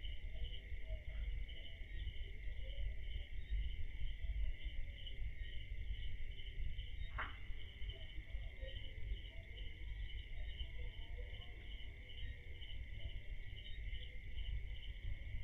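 Night insects such as crickets calling steadily, one high trill holding level under a second that pulses evenly, over a low background rumble. A single sharp click about seven seconds in.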